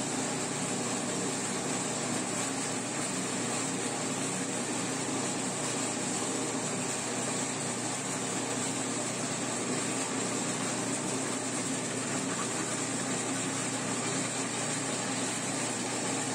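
Motor-driven Arenas grinding mill running steadily with a constant hum and grinding noise, milling toasted cacao, soaked rice and cinnamon into chilate paste as it is fed by hand through the hopper.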